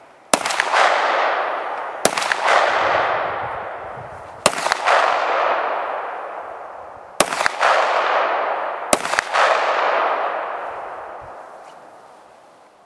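Pistol shots, about five bursts roughly two seconds apart, several of them two or three shots in quick succession, each followed by a long echo that dies away over a second or two.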